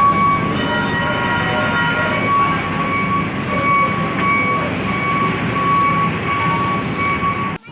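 Heavy engines rumbling steadily under a thin, steady high whine that comes and goes. The sound cuts off abruptly near the end.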